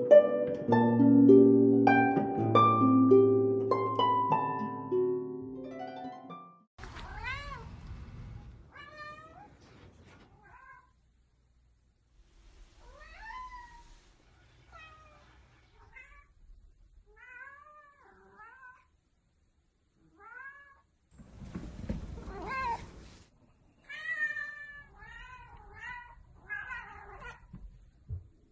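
Plucked harp music for the first six seconds or so, then a golden British Shorthair cat meowing over and over in short calls that rise and fall in pitch, with brief low noises among the calls.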